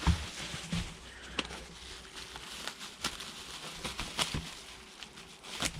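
Plastic packaging rustling and crinkling as a foam model-plane wing is unwrapped, with scattered sharp clicks and taps.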